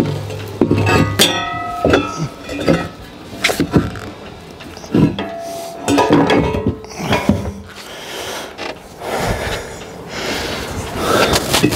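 Heavy breathing close to the microphone, mixed with knocks and clinks of metal fittings being handled, a few of them ringing briefly.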